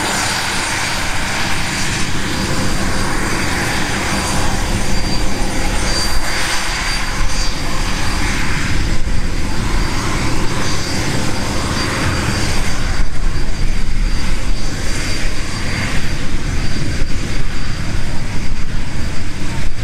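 Fairchild Dornier Alpha Jet's twin Larzac turbofan engines running at taxi power: a steady high whine over a constant rushing jet noise. About two-thirds of the way through, the low rumble grows louder and rougher.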